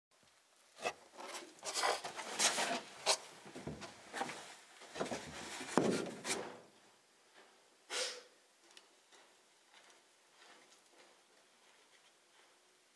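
Close-up handling noise from the camera being adjusted and set in place: irregular rubbing, knocks and clicks for the first six seconds or so, one more scrape about eight seconds in, then only faint scuffs of footsteps in the arena sand.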